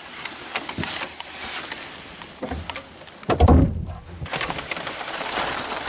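Foam packing peanuts rustling and squeaking as hands dig through a box of them, with a short low sound about three and a half seconds in.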